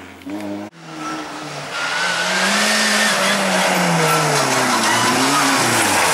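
Fiat Uno rally car driven hard past at close range: its engine revving high, the note climbing and then slowly falling as it goes by, with loud tyre and road noise. A sharp cut just under a second in ends a fainter engine sound.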